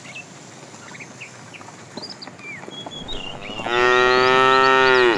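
A cow mooing once: one long, steady call that starts near the end and lasts about a second and a half.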